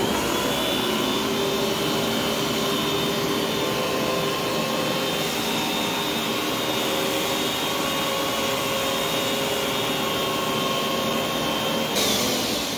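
Hoover Dual Spin Pet upright carpet cleaner running as it is pushed over carpet: a steady suction-motor whine over a rushing noise. It spins up at the start and begins to wind down near the end.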